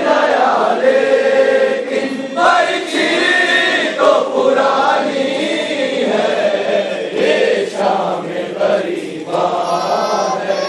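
A crowd of men chanting a Shia mourning lament (noha) together, many voices in unison on a repeated melodic line, going on without a break.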